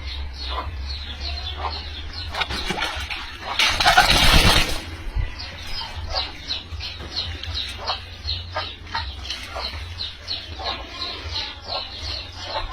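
Chickens peeping: short, high, falling chirps repeated a few times a second. About four seconds in there is a loud burst of rustling noise, over a steady low hum.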